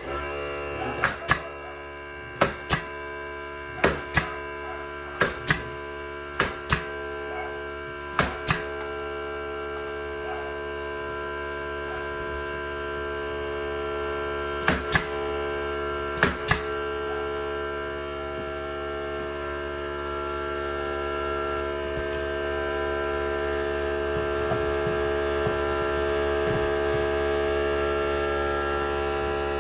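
Sharp tool strikes in quick pairs while carpet is fitted onto stairs, six pairs in the first nine seconds and two more about halfway, over a steady electrical hum with several tones that sets in at the start.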